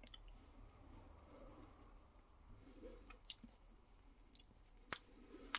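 Faint chewing and mouth sounds of someone tasting a mouthful of hummus, with a few small sharp clicks in the second half.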